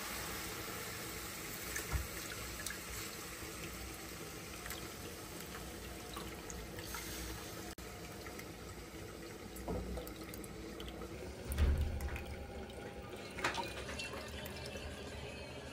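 Thick tamarind pulp being poured and ladled from a plastic bowl into a pan, the liquid sloshing and splashing, with a few dull knocks of the ladle against the pan and bowl.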